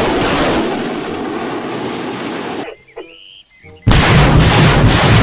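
Two loud explosion-like blasts of a missile-launch sound effect. Each starts suddenly and rumbles away over a few seconds; the second comes about four seconds in.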